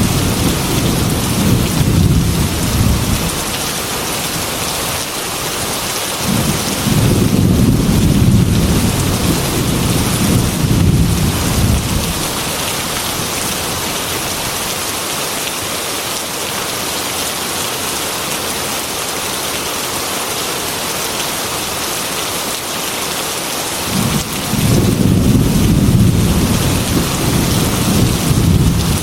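Steady heavy rain beating on a glass window, with thunder rolling three times, each rumble lasting several seconds: at the start, again for a longer spell in the first half, and once more near the end.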